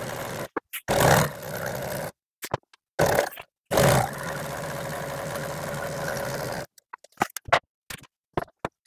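Industrial sewing machine stitching welt (vinyl wrapped around welt cord), running in several stretches with short stops, the longest about three seconds. Near the end, a scattering of short clicks.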